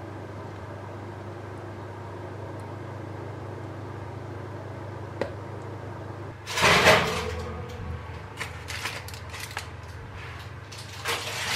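Kitchen handling sounds over a steady low appliance hum. About six and a half seconds in there is a loud rustle and clatter, followed by a few light knocks and clicks and another rustle near the end, as the filled quiche tin on its paper is handled and moved off the counter.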